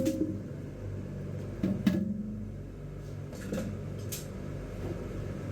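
A porcelain toilet being handled as it is lifted off its flange and set down on cardboard: a few knocks and clunks, the loudest right at the start and about two seconds in, over a steady low hum.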